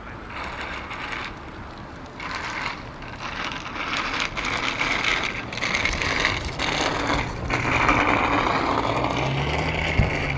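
Surf washing on a rocky shore: a steady hiss that rises and falls in swells and grows louder about halfway through. A faint low hum joins in the second half, and there is a single knock near the end.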